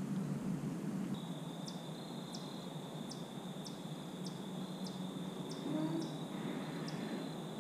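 Backyard evening ambience with a steady high insect trill that starts about a second in. Short, high, falling chirps repeat over it roughly every half second.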